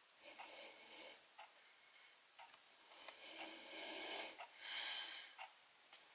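Faint, close nasal breathing, two longer snuffling breaths in the second half the loudest, with light clicks of steel tweezers between them during beard-hair plucking.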